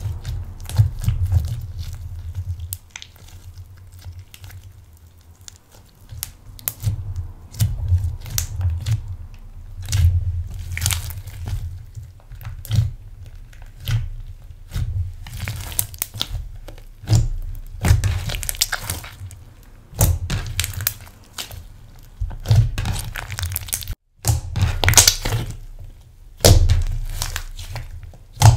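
Hands kneading and stretching a large sticky slime with crumbled eyeshadow worked in: irregular wet squishes, crackles and pops, with soft low thumps as it is pressed down against the table.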